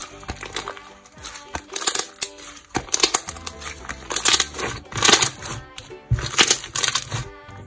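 White fluffy slime squeezed, folded and stretched by hand, giving clusters of crackling and squishing pops, busiest in the second half, over soft background music.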